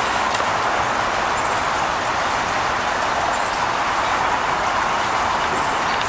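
Steady, unbroken hiss of nearby road traffic.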